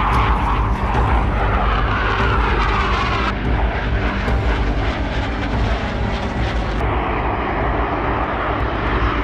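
Jet noise of a SEPECAT Jaguar, whose twin Rolls-Royce Turbomeca Adour turbofans run at high power in a steady roar. The sound changes abruptly about three seconds in and again near seven seconds.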